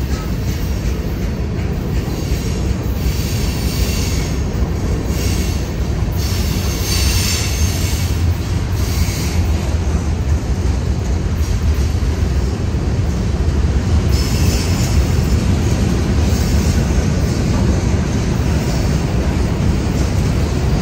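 CSX freight train rolling past with a steady low rumble, its wheels squealing several times.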